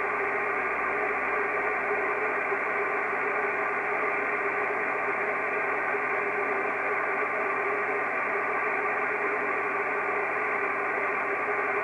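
Kenwood TS-680S transceiver receiving 6-metre single sideband, giving a steady hiss of band noise through its speaker. No station is coming through: the frequency is open and empty while listening for replies to a CQ call.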